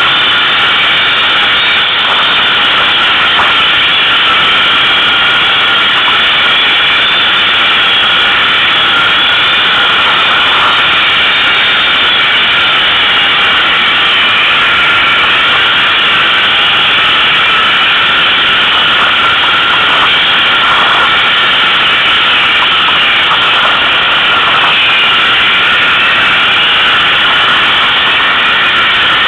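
ATV engine running steadily under way, loud and unchanging throughout.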